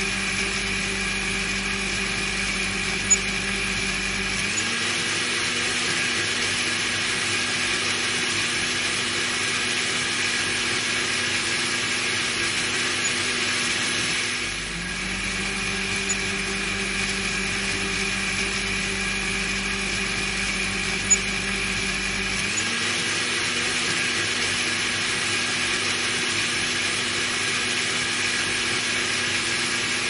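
Electric blender motor running steadily with a pitched whirring hum. Its pitch steps up slightly about four seconds in, drops back with a brief dip in level about halfway, and steps up again later, with two short clicks along the way.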